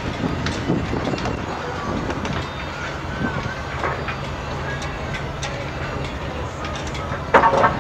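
Low, steady drone of ships' engines as a bulk freighter is towed out of the harbor by tugboats, with scattered faint clicks and a short louder burst near the end.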